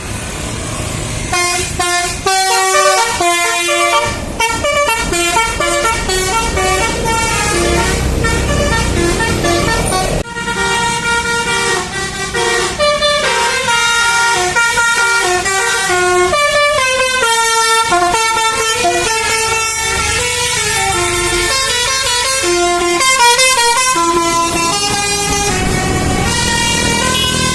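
Indonesian bus 'telolet' multi-trumpet air horn, driven by a DAV melody module, playing a continuous run of quick, changing notes with several tones sounding at once, starting about a second in.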